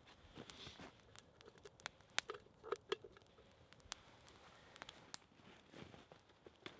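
Quiet wood campfire crackling, with irregular sharp pops and snaps.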